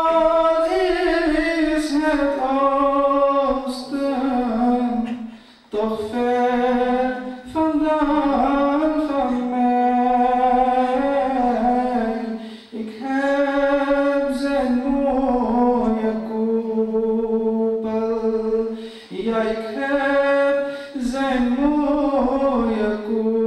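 A man singing a Dutch-language naat, unaccompanied, in long drawn-out gliding phrases broken by short pauses.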